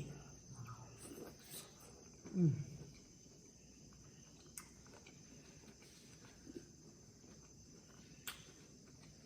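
Quiet close-up eating sounds: chewing and mouth noises, with a short falling "mmm" about two and a half seconds in and two sharp clicks later on.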